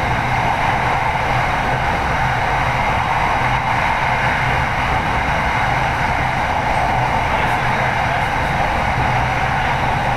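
Steady running noise of a Bangkok SRT Red Line electric train heard inside the passenger car at speed: an even rush of wheel-on-rail noise with a low hum underneath.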